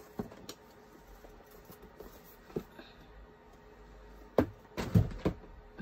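Objects being handled and put away on a table: a few faint clicks, then three louder knocks near the end as things are set down.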